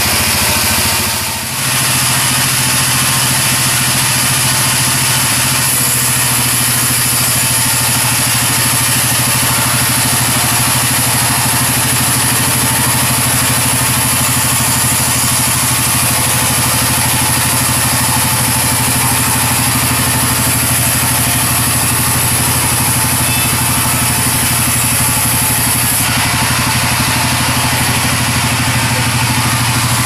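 Sawmill band saw running steadily and cutting a sengon (albasia) log as it is carried through the blade, over a constant low machine hum. The sound dips briefly about a second and a half in.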